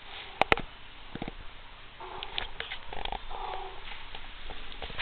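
Domestic cats making soft vocal sounds from about two seconds in, among scattered light taps and scratches. Two sharp knocks about half a second in are the loudest sounds.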